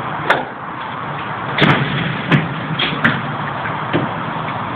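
A hand pallet truck worked and pulled out from under a load on a truck's cargo floor, with about five sharp metal clanks and knocks, the loudest about one and a half and two and a half seconds in, over steady background noise.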